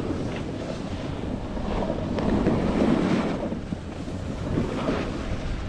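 Wind buffeting the microphone of a camera carried by a skier moving downhill, with the hiss and scrape of skis on packed snow swelling and fading with the turns.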